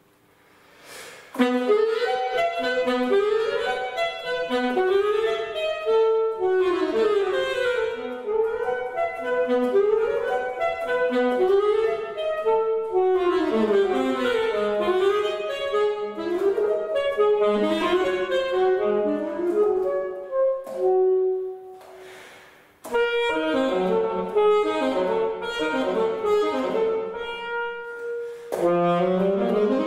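Solo alto saxophone playing a quick passage of running notes. It comes in about a second in, breaks off briefly about two-thirds of the way through, then resumes.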